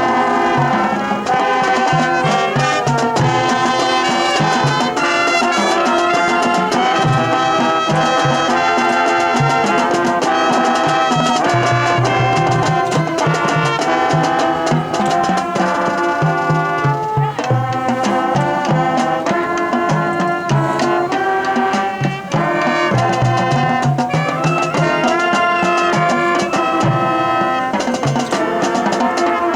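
High school marching band playing, with the brass section carrying held, moving chords over drum percussion.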